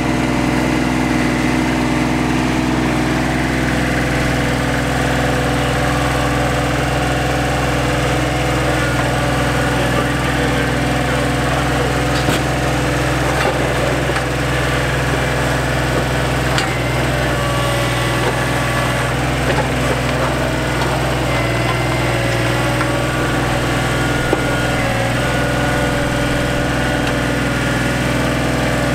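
John Deere 2025R compact tractor's three-cylinder diesel engine running steadily at a constant speed, with a couple of short sharp knocks about twelve and seventeen seconds in.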